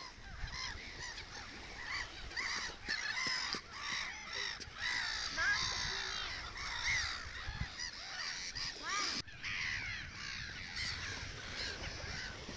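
A flock of gulls calling, many short squawks overlapping one another without a break.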